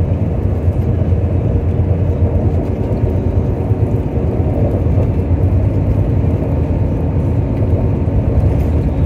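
Steady low drone of a moving bus heard from inside the cabin: engine and tyre noise at road speed, unbroken throughout.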